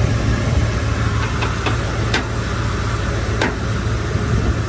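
Ford F-150 front end popping: a few sharp pops in the first half and a stronger one about three and a half seconds in, over the steady hum of the running engine. The pops come from a front crossmember left loose after an oil pan gasket job.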